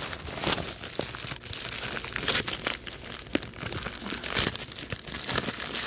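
Thin plastic bags crinkling and rustling continuously as they are handled and pulled open by hand, with many small crackles.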